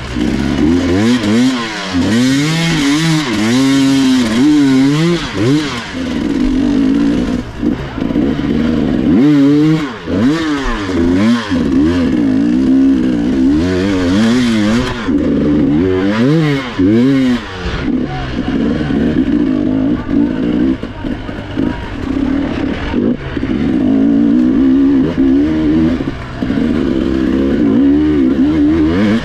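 Trail motorcycle engine revving up and down over and over, its pitch rising and falling every second or so, with steadier running in between.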